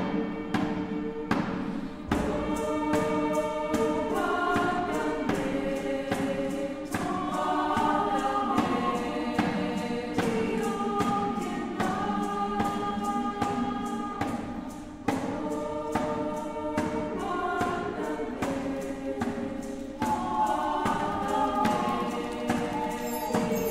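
Girls' choir singing in several parts, holding chords that shift in pitch, over sharp percussive taps that keep a regular beat.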